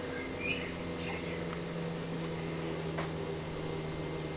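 Steady hum of a running kitchen appliance's motor or fan, with a few short high squeaks in the first second and a single click about three seconds in.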